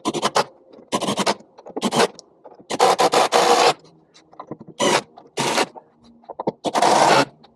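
A series of short scraping and rubbing sounds, about seven of them, the longest lasting about a second a little before the middle. It is handling noise from parts being worked by hand.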